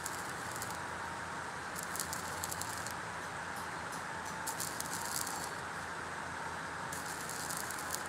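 Stick (electrode) arc welding on steel: a steady sizzling arc with bursts of sharper crackle about every two to three seconds.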